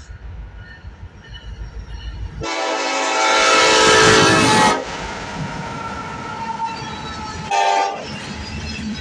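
Norfolk Southern SD70ACE diesel locomotive's horn sounding one long blast of about two seconds as the engine passes close, over the low rumble of the approaching engine. Then the rumble of the passing freight train, with a short second horn note near the end.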